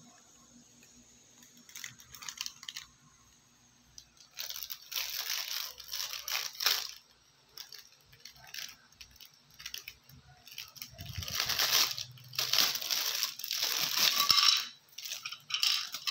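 Clear plastic wrapping crinkling and rustling in handled bursts as small toy figures are unwrapped by hand: a short burst near the start, a longer one around five to seven seconds in, and the longest and loudest from about eleven to fifteen seconds.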